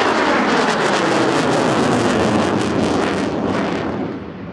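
MiG-29's twin Klimov RD-33 turbofans in afterburner: loud, crackling jet noise. The high end fades and the level drops about three and a half seconds in as the jet climbs away.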